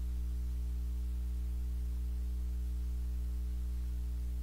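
Steady low electrical hum with several overtones, unchanging in pitch and level: mains hum in the recording.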